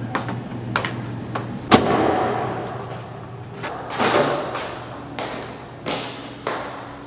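Footsteps on a hard tiled floor, about one every 0.6 s. A heavy stairwell door clunks loudly with an echo a little under two seconds in, and again about four seconds in. Steps go on in the stairwell, over a steady low hum.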